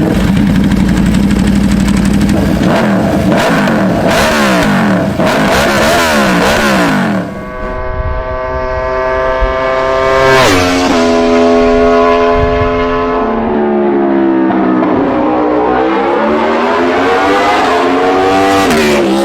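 Aprilia RSV4's 999 cc V4 engine revving hard. First come rapid rises and falls in revs, then a sustained high-rpm run whose pitch drops sharply twice and then climbs again before dropping near the end.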